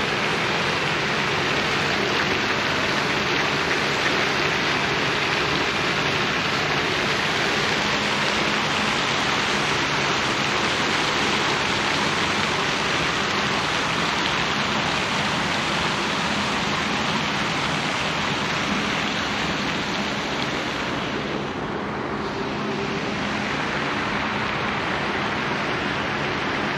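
Steady rushing hiss of a fountain's spray falling into a pond, dipping slightly about three quarters of the way through.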